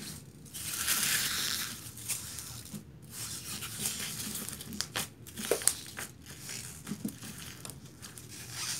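Hands squishing and kneading fluffy slime into crumbled styrofoam pieces: a steady squishing hiss over the first couple of seconds, then scattered sharp crackles and clicks as the foam bits are worked in.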